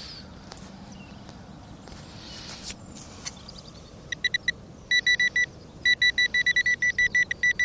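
Handheld metal-detecting pinpointer probe in the dig hole, with a little scraping and a couple of knocks, then from about four seconds in a single high tone beeping in fast pulses that come quicker and closer together: it is signalling a buried metal target close by.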